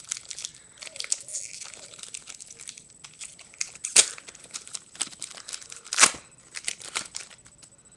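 A foil trading-card pack wrapper being torn open and crinkled, a dense run of crackling with two sharp, loud rips about four and six seconds in.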